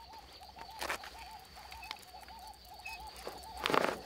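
An animal calling in a fast, even run of short wavering notes, over a faint steady high tone. Two brief rushing noises come about a second in and near the end, the second the loudest.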